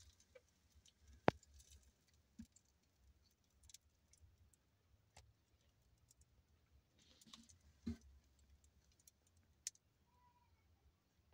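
Near silence with a faint low hum and a few scattered small clicks; the sharpest click comes about a second in and another near eight seconds.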